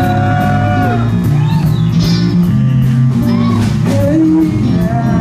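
Live band jam with drum kit, bass guitar and electric guitar, a cymbal ticking at an even beat. A long held high note sounds over it in about the first second and bends down as it ends.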